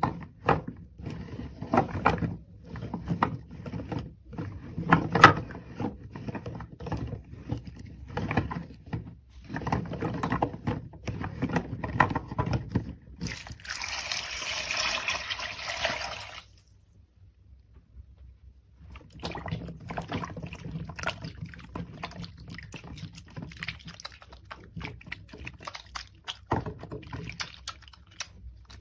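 Wet, soaked soap being lathered and squished by hand, making irregular squelching, crackly strokes. About thirteen seconds in there are about three seconds of steady hiss, then a short lull. After that comes fainter crackling of the foam.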